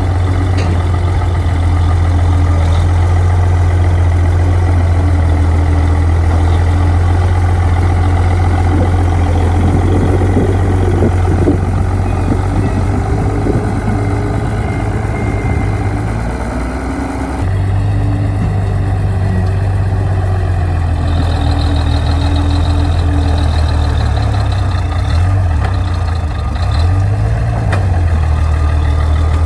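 Heavy diesel engine of earthmoving machinery running steadily with a strong low drone. The sound dips briefly and then changes abruptly about two-thirds of the way through.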